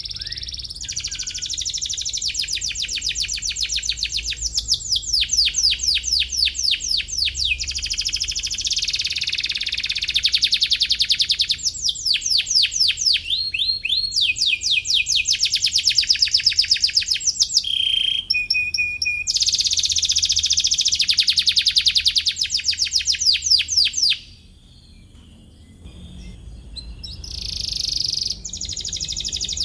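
Domestic canary singing: long, rapid trills of fast repeated notes that change from phrase to phrase, with a break of about two seconds near the end before it starts again.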